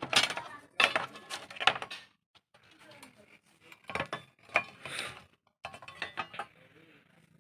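Small metal parts clinking and rattling as they are handled, in a quick series of sharp knocks, busiest in the first two seconds.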